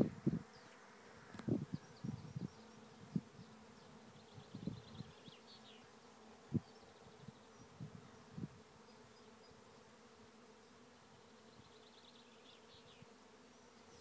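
A swarm of honeybees buzzing: a steady hum of many bees in flight, with single bees buzzing loudly past close by again and again during the first eight or nine seconds.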